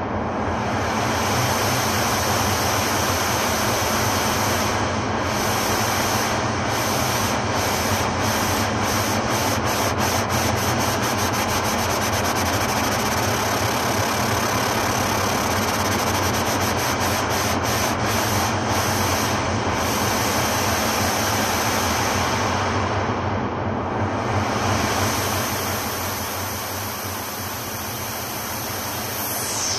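Experimental ambient electronic track: a dense, rushing noise texture over a steady low drone. Its high hiss is chopped into pulses that speed up to a rapid flutter around the middle and then slow down again.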